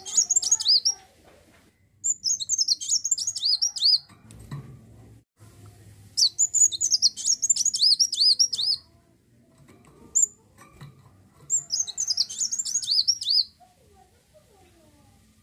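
Kolibri wulung, a sunbird, singing in four bursts of rapid, high twittering notes that sweep up and down, each about two seconds long with short pauses between.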